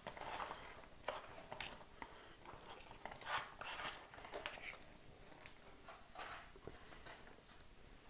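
Faint crinkling of a foil freeze-dried meal pouch and a spoon scraping inside it, with scattered soft clicks, as the rehydrated pasta bolognese is emptied onto a stainless steel tray.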